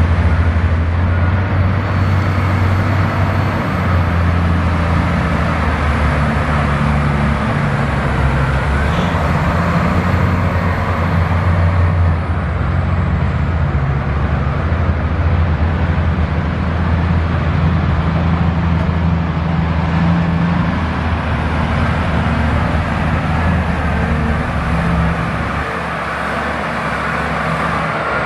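Caterpillar 773G off-highway dump truck's diesel engine running steadily as the truck drives, a deep low engine note throughout, easing slightly near the end.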